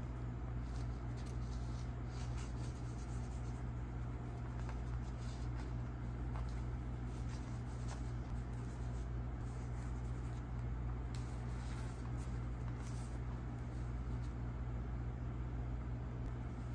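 Paper cutouts being picked up and slid across a tabletop, making faint, irregular rustles, over a steady low hum that is the loudest sound throughout.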